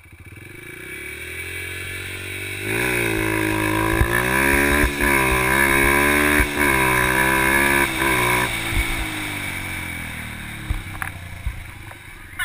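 Yamaha TT-R125 dirt bike's single-cylinder four-stroke engine pulling away and accelerating hard, its pitch rising and wavering with two brief dips. It then drops back to a low, quieter run near the end as the bike slows.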